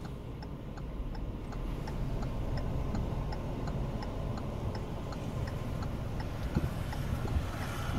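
Car's turn-signal indicator ticking in a steady, evenly spaced tick-tock inside the cabin, over the low hum of the engine as the car moves slowly forward.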